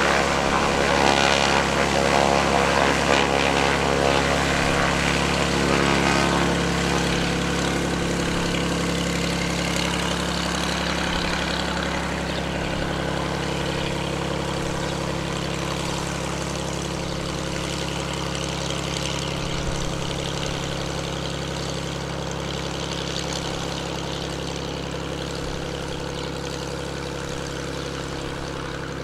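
Beechcraft A36 Bonanza's six-cylinder piston engine and propeller running steadily at low taxi power, slowly fading as the plane taxis away.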